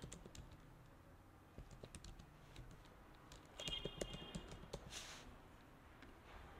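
Faint typing on a computer keyboard: scattered keystroke clicks in two short runs, about one and a half seconds in and again around four seconds in.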